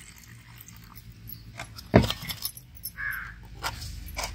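Clear plastic dome lids clicking and knocking onto plastic cups, with one sharp knock about two seconds in. A crow caws once about three seconds in.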